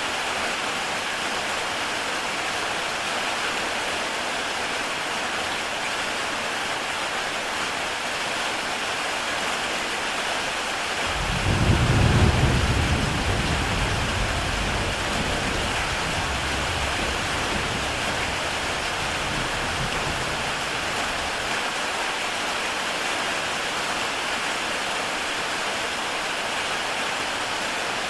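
Heavy rain falling on a tile roof, a steady hiss. About eleven seconds in, a low rumble of thunder rises quickly and fades away over about ten seconds.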